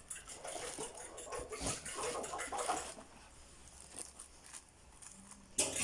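A cardboard product box being opened by hand: crackly rustling and scraping with small knocks, easing off after about three seconds, then a short loud rustle near the end.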